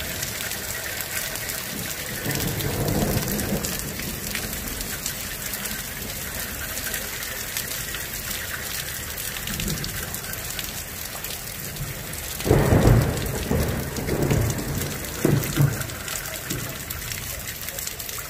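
Rain falling steadily during a thunderstorm. A low roll of thunder comes a couple of seconds in, and a louder clap of thunder about two-thirds through rumbles on in swells for several seconds.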